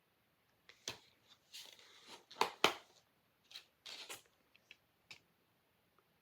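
Handling of plastic movie disc cases: a series of short clicks and brief rustling scrapes, the sharpest click about two and a half seconds in.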